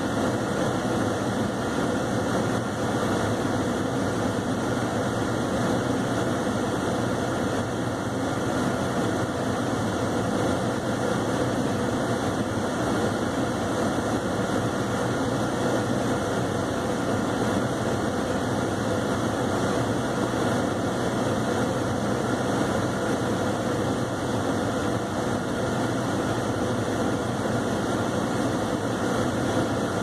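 Chevrolet Cavalier idling, heard from inside the cabin: a steady low engine hum under an even rush of air noise.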